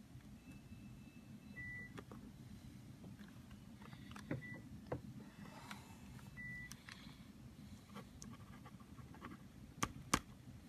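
Quiet desk-side handling of a paper card, pen and marker over a low room hum, with scattered faint ticks and three short faint beeps. Two sharp clicks near the end, as the marker comes to the card.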